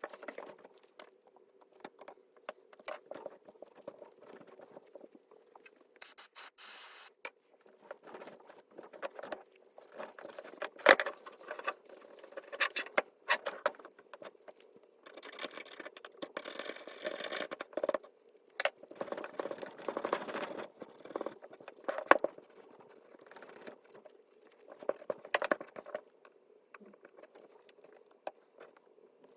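Irregular clicks, taps and scrapes of hard parts and tools being handled, with a few sharper knocks, over a faint steady hum.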